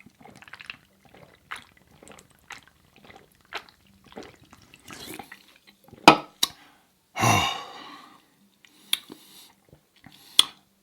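Wet chewing and lip-smacking of a person eating a burger close to the microphone, a run of small sticky mouth clicks with a few sharper smacks, and a breathy exhale about seven seconds in.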